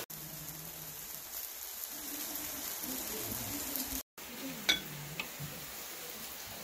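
Lamb skewers sizzling on foil over a barbecue grill. About two-thirds of the way through, a sharp metallic pop as an aluminium beer can's pull tab is cracked open, then a smaller click.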